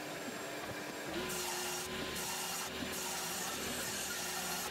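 Table saw running and ripping a board into strips: the steady hum of the spinning blade, with the louder noise of the blade cutting through the wood from about a second in.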